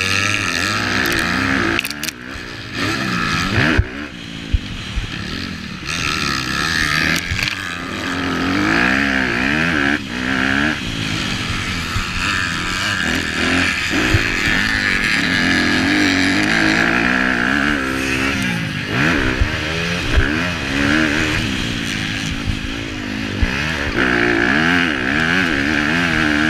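Honda CRF250R single-cylinder four-stroke motocross engine heard onboard while racing, its revs repeatedly climbing and falling off as the rider works the throttle through the track, with a short drop in revs about two seconds in. Scattered sharp knocks are heard along the way.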